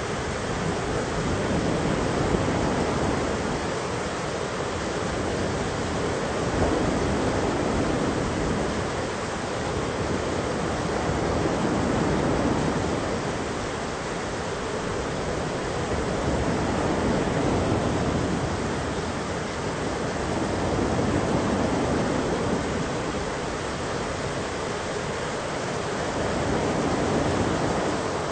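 Thunderstorm soundscape: a steady rush of noise that swells and eases about every five seconds, with no sharp thunderclap.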